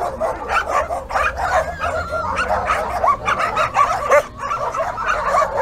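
Many dogs barking and yelping at once, short barks and yips overlapping without a break.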